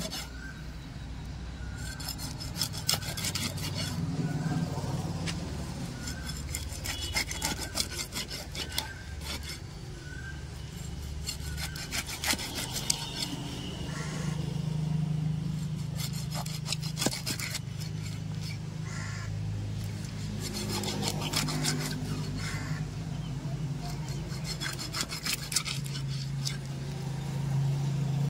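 Knife sawing through a catla fish's body and backbone to cut it into round steaks: repeated bouts of short back-and-forth strokes a few seconds apart, over a steady low hum.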